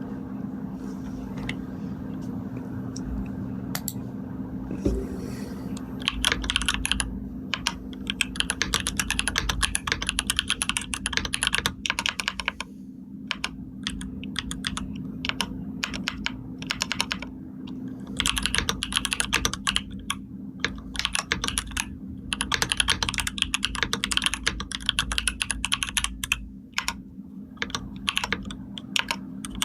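Typing on a computer keyboard: a few single key clicks, then fast runs of typing from about six seconds in, broken by pauses with only scattered keystrokes. A steady low hum sits underneath.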